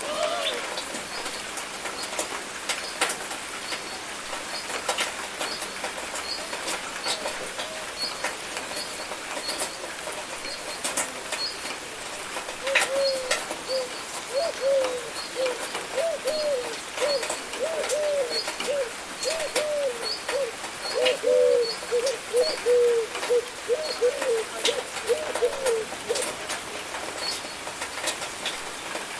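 Steady rain falling, with individual drops ticking sharply on a nearby surface. From about halfway through, a bird repeats short low calls about twice a second for some fifteen seconds, and a faint high chirp repeats over the first half.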